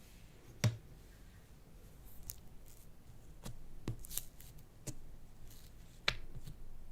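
Slime being handled and pressed, giving a scatter of sharp clicks and pops. The loudest come about half a second in and again near the end.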